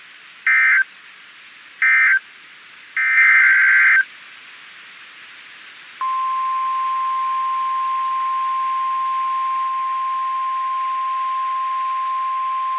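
Three bursts of SAME digital data tones, two short and one about a second long, then a loud steady single-pitch NOAA Weather Radio warning alarm tone that starts about six seconds in, signalling an incoming weather warning.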